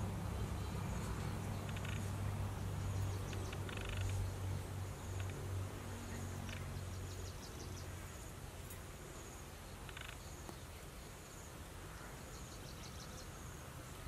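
Outdoor ambience: a steady low hum that fades away about halfway through, with faint, repeated high chirps and a few soft clicks.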